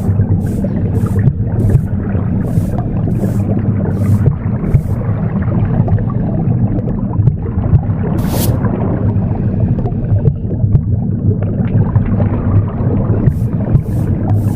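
Womb sound: a steady low whooshing rumble, mixed with brisk broom strokes swishing about twice a second. The sweeping stops about five seconds in, with one lone stroke near the middle, and starts again near the end.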